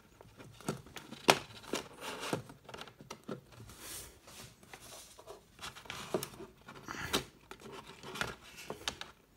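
Plastic Blu-ray case being handled: irregular clicks and light knocks as a disc is pressed off the case's centre hub and lifted out.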